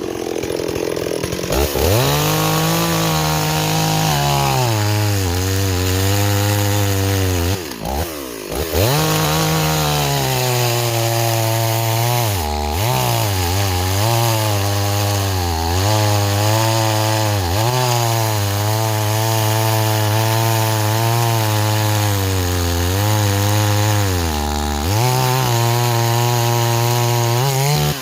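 Stihl 026 two-stroke chainsaw revving up to full throttle and cutting wood. The engine note drops and wavers under load in the cut, falls away briefly about eight seconds in, then picks up again and revs high near the end as the bar comes free.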